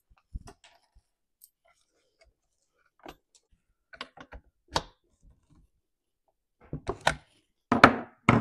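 Scattered clicks and knocks of a new spark plug being fitted into a Stihl MS250 chainsaw with a T-handle plug wrench, metal tool against the saw. The loudest knocks come near the end, as the wrench is set down on the workbench.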